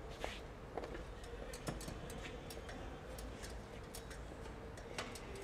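Footsteps on stone paving: scattered light clicks and taps at uneven intervals, a few of them louder, over a faint steady hum.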